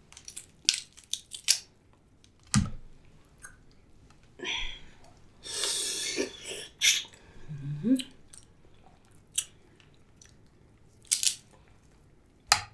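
Close-up eating sounds of a crab and lobster seafood boil: sharp cracks and clicks of shell being broken, with chewing and a denser noisy stretch of about a second around the middle.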